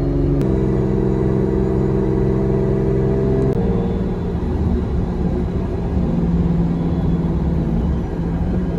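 Car engine running while driving, with a steady rumble; its note steps up just after the start and drops about three and a half seconds in.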